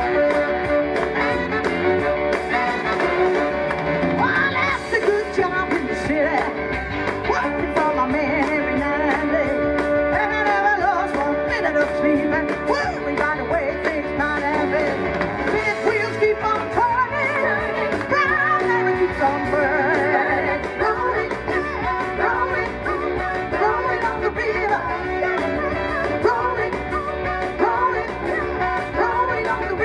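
A woman singing into a microphone, amplified, over instrumental backing music: a live song performance.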